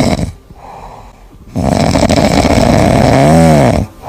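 A cat snoring: a short rough breath, a pause of about a second, then a longer rasping breath that ends in a brief rising-and-falling tone.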